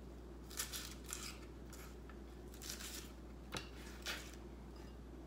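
Romaine lettuce being torn and handled for a salad: a string of short, crisp tearing and rustling sounds, with one sharper click about three and a half seconds in.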